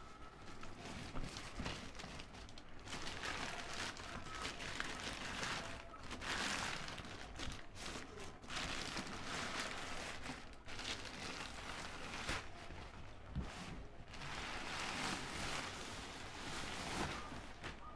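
Thin black plastic courier bag crinkling and rustling in irregular bursts as it is torn open and pulled off a cardboard box.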